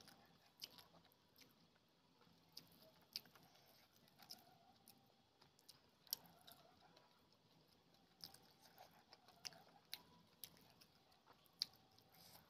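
Eating sounds from rice with egg curry: chewing, and fingers mixing rice and crumbled egg on a plate. It comes as soft, irregularly spaced wet clicks and smacks.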